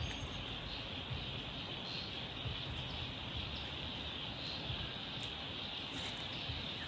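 Steady outdoor ambience carried by an even, high-pitched insect chorus of crickets, with a few faint ticks.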